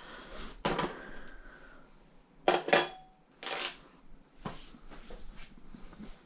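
Several sharp knocks and clatters from tools and framing lumber being handled, the loudest a quick pair about two and a half seconds in.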